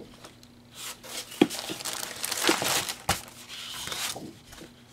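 Sheets of scrapbook paper being leafed through and laid on a table: paper rustling, with a few sharper flaps as sheets turn over.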